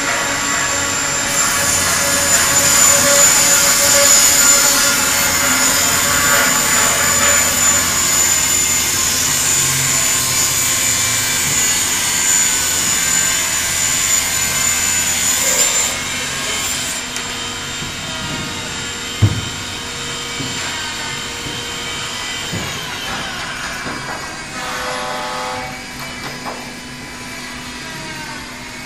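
Door sizing machine running, its motor-driven saw heads trimming the edges of a panel door as it is pushed through, with the dust extraction drawing alongside. A steady high whine stops about three-quarters of the way through, and there is one sharp knock about two-thirds through.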